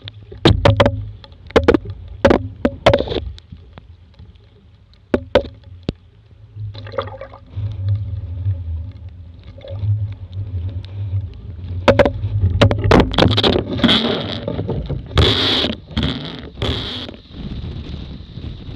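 Water splashing and sloshing over the rig of a capsized Laser dinghy, with many sharp knocks and a low rumble of wind buffeting the microphone. There are louder splashing bursts near the end.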